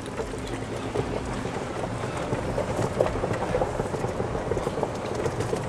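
Steady rumbling noise of a vehicle on the move, with a continuous rattle and many small clicks.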